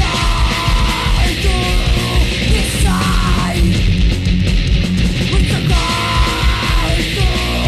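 Punk rock band playing at full tilt, with shouted vocals coming in short phrases over pounding drums and dense guitars.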